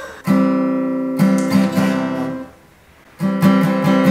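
Steel-string Fender acoustic guitar strummed in chords: a few strums that ring out, a gap of about a second near the middle, then another quick run of strums.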